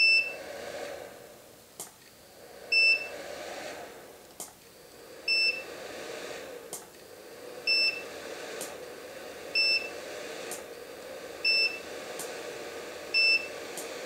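Studio monolight firing repeatedly at half power off a battery-and-inverter power pack. Each flash fires with a sharp click, and about a second later a short high beep signals the recycle is done, roughly every two seconds. The inverter's cooling fan runs steadily underneath.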